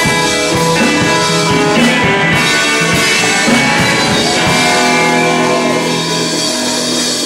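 Live rock band playing: electric guitars over drums, with long held guitar notes in the second half.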